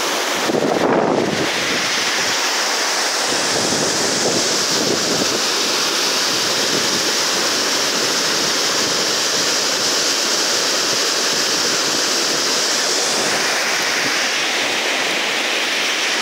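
Waterfall rushing steadily as a dense, even wash of falling water over rock steps, heard from a footbridge above it. A brief louder bump about a second in.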